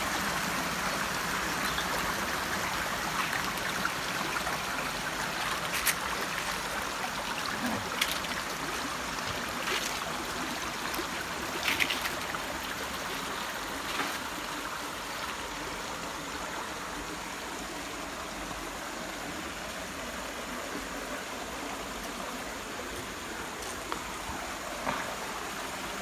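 Small rocky stream trickling and splashing over stones in a steady rush that eases a little in the second half. A few sharp clicks stand out over it in the first half.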